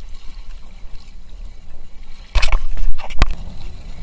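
A kayak being paddled: water sloshing around the paddle and hull over a steady low rumble, with a loud rushing splash about two and a half seconds in and a sharp knock just after three seconds.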